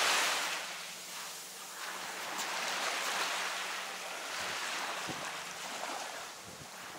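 Small waves washing up onto a sandy beach: a broad wash that is loudest at the start, eases off, then swells twice more.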